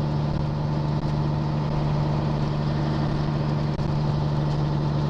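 Peterbilt 379's diesel engine running steadily with an even, low drone, heard inside the cab as the truck moves slowly.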